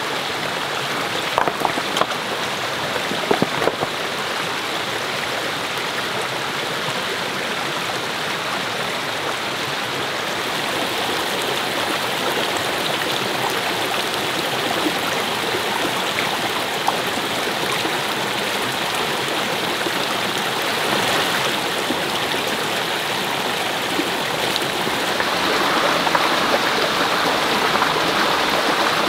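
Steady rush of flowing water, growing slightly louder near the end, with a few faint clicks in the first few seconds.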